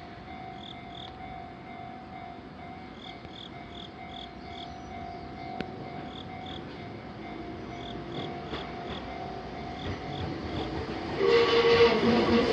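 Enoshima Electric Railway train arriving at a narrow level crossing, its sound rising sharply about eleven seconds in, with a strong steady tone as it comes through. Before that, only faint background with a thin steady tone and short high chirps repeating.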